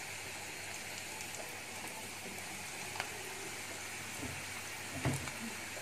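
Sliced onions sizzling steadily in hot oil in a karahi, with a faint tick about three seconds in and a short knock of the wooden spatula against the pan near the end.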